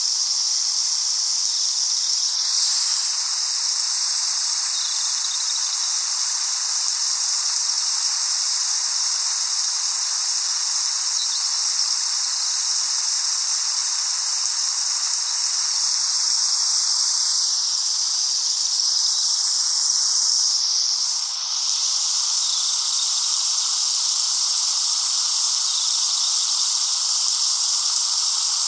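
Steady outdoor nature ambience: an even, high-pitched hiss that holds at one level throughout.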